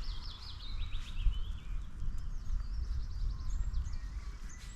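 Songbirds singing, with rapid trills of short down-slurred chirps throughout, over a steady low rumble.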